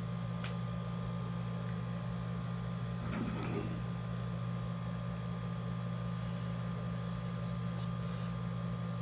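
Steady low electrical hum with a thin higher tone above it, and one faint soft sound about three seconds in.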